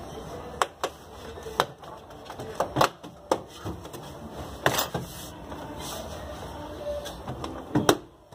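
Plastic door trim panel of a Renault Logan being pushed and tapped back onto the door, giving a series of sharp knocks and clicks as the panel and its clips seat. The loudest knocks come about three seconds in and near the end.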